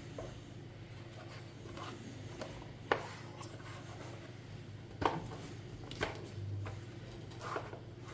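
Objects being handled: a few sharp knocks and clicks with some rubbing, over a steady low hum.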